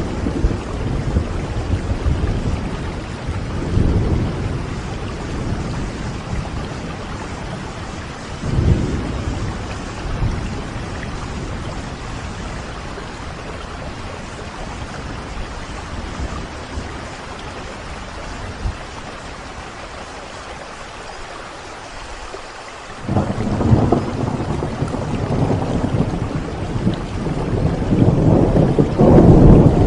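Steady rain with rolling thunder: low rumbles swell about 4 and 9 seconds in, then a louder rumble starts about 23 seconds in and builds toward the end.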